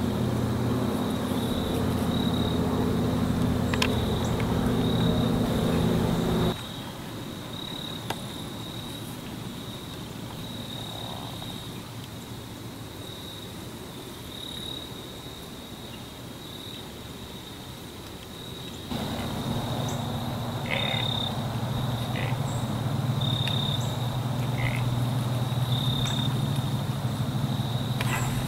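Outdoor field ambience: insects keep up a steady high-pitched trill with short repeated pulses, over a low steady hum that drops away about six seconds in and comes back about nineteen seconds in.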